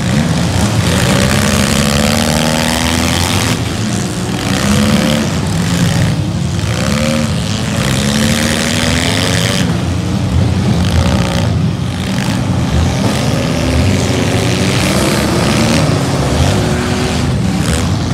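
Several demolition derby street stock cars' engines revving hard at once, their pitches rising and falling over one another as the cars push and ram in the mud.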